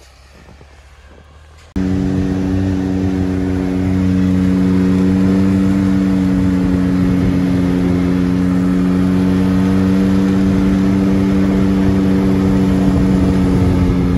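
Side-by-side UTV engine running at steady speed with a constant droning pitch. It cuts in abruptly, loud, about two seconds in, after a faint opening.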